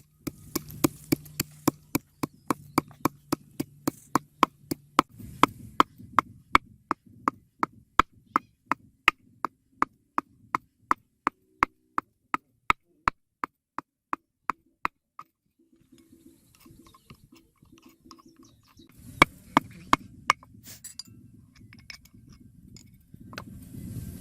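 A knife chopping on a cutting board in steady, even strokes, about three a second, stopping about two-thirds of the way through; a few louder strikes come near the end.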